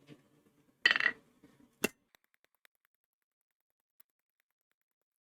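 Two short metallic clinks in the first two seconds: steel tools or the forged spike knocking against metal, the first with a brief ring. A few faint ticks follow.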